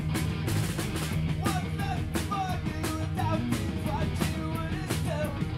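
Live rock band playing: electric guitars and bass over a drum kit with regular drum and cymbal hits.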